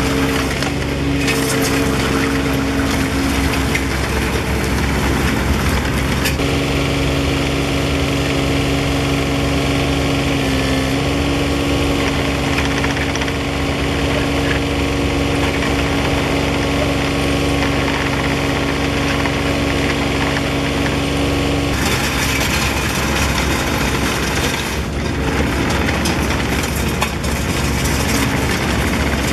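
2006 Bobcat 323J mini excavator's diesel engine running steadily, its tone shifting about six seconds in and again about twenty-two seconds in.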